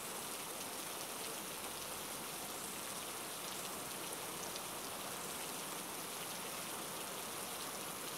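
Heavy rain falling steadily: an even hiss of drops on wet ground.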